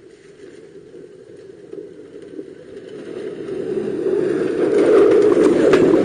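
A 4x4 SUV's engine running as it comes down a rutted dirt slope, growing steadily louder as it nears and passes close by, with a few knocks and rattles near the end.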